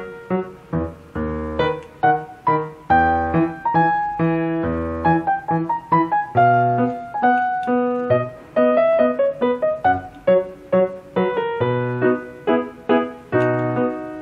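Instrumental piano-style keyboard music: a lively tune of short, quickly fading notes over a bass line.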